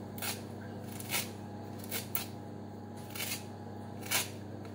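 Lemon peel scraped against a small flat metal hand grater while zesting, about six short scraping strokes at irregular intervals, over a steady low hum.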